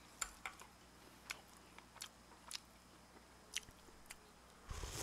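Faint chewing with a few scattered wet mouth clicks, then a brief slurp of soup from a spoon near the end.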